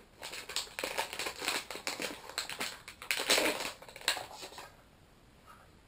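Plastic bag crinkling and rustling as a Raspberry Pi board is handled and pulled out of it, with a louder crackle about three seconds in. The crinkling stops about a second before the end.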